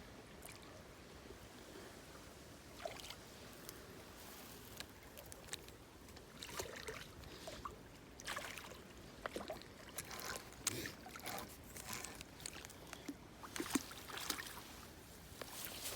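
Faint, irregular small splashes and knocks of water, sparse at first and busier from a few seconds in.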